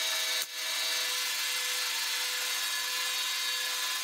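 Laser cutter running while it cuts plywood: a steady hiss of air and fans with a few faint steady whining tones, briefly dipping about half a second in.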